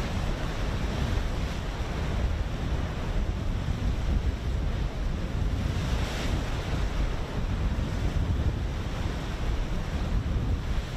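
Wind buffeting the microphone over the wash of open sea, a rumbling, fluttering noise with no engine tone in it.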